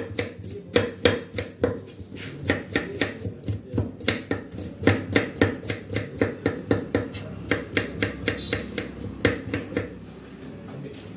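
Knife chopping red onions on a wooden cutting board: a quick, steady run of sharp chops, about four a second.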